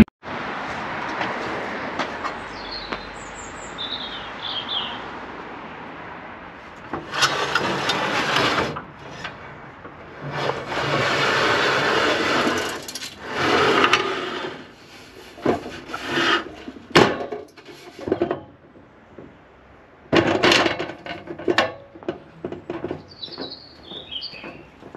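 Aluminium ladder scraping and rattling in several long stretches as it is handled and its sections slide, then a run of short knocks and clanks as someone climbs its rungs. Birds chirp faintly.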